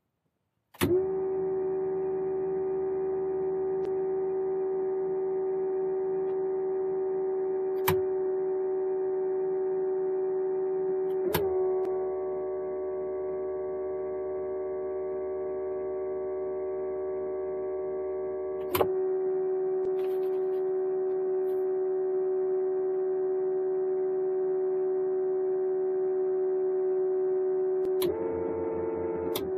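Steady electrical hum with a clear pitch from the gyrocopter's systems, switched on with a click about a second in while the engine is not yet running. Further sharp switch clicks come about eight, eleven and nineteen seconds in, the hum changing slightly in tone at some of them, and it wavers briefly near the end.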